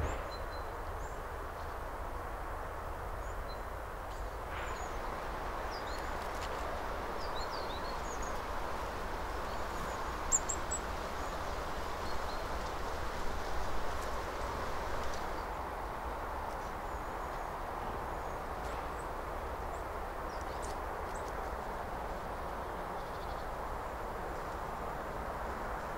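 Steady rushing outdoor background noise with many faint, short, high chirps of small birds scattered over it, most of them in the first half.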